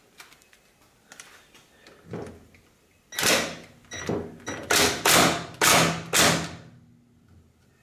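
Ratchet wrench tightening the bolt of the speed sensor on a Honda Pioneer 500 transmission case: a few light clicks, then about five quick ratcheting strokes.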